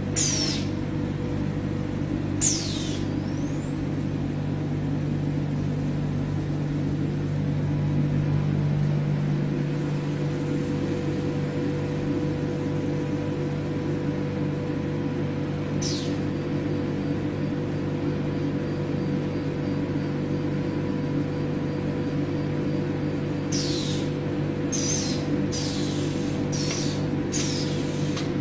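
Steady hum of an automatic powder filling and bagging machine and its blower ducting, with short, sharp hisses of compressed air from its pneumatic valves. The hisses come once near the start, again about two seconds later, once in the middle, and five times in quick succession near the end.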